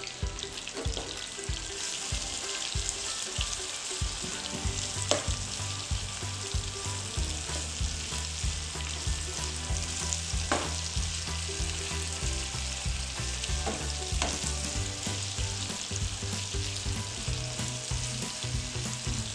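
Marinated chicken pieces sizzling steadily in melted butter in a nonstick frying pan. In the latter half a spatula stirs them around the pan, with a few sharp scraping taps.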